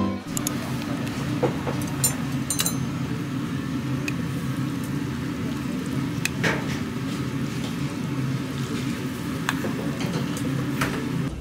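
Eating-place ambience: a steady low hum with scattered light clinks of chopsticks and dishes.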